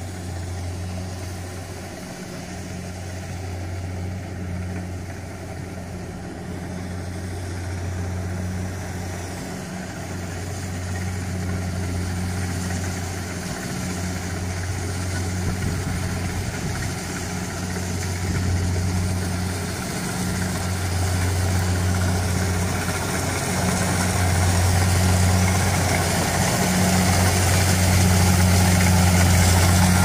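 Kubota DC-70 Plus rice combine harvester's diesel engine running steadily while the machine cuts rice, growing louder as it comes closer.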